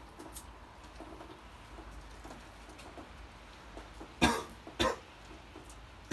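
A man coughing: two hard, short coughs about four seconds in, half a second apart. It is a smoker's cough, from a heavy cigarette smoker.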